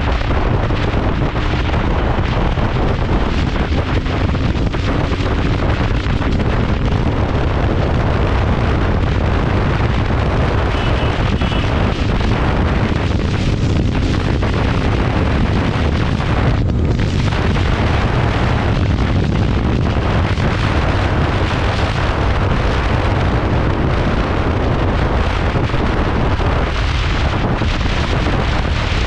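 Heavy wind buffeting the microphone of a Royal Enfield Continental GT 650 ridden at high speed, a steady rush of noise with the bike's engine running underneath.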